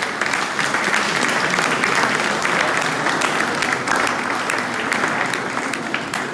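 Audience applauding: dense, steady clapping from a crowd of many hands, easing slightly near the end.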